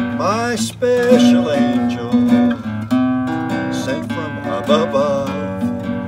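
Nylon-string classical guitar strummed and picked in a steady accompaniment, with a man's voice singing short phrases over it, the first about half a second in.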